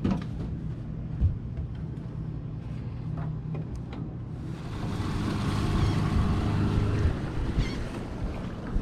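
A boat's motor running steadily, with wind buffeting the microphone and growing stronger about halfway through, and a single knock about a second in.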